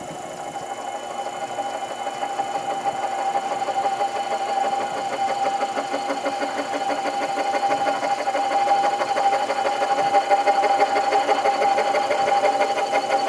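Sherline mini lathe running on its low-speed pulley setting while the tool takes a 0.010-inch facing cut across the end of a metal workpiece. It makes a steady motor-and-drive whine with a fast, even flutter, growing slowly louder.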